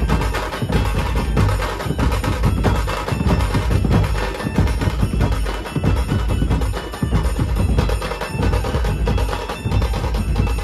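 Dhumal drum band playing: a row of large double-headed bass drums beaten with sticks together with smaller drums, in a fast, dense rhythm.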